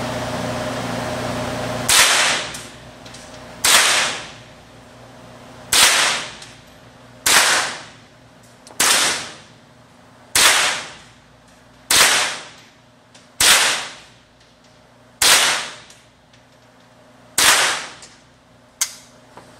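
A rifle fired ten times in a slow, steady string, one shot every second and a half to two seconds, starting about two seconds in. Each crack is followed by a short echo off the walls of the indoor range.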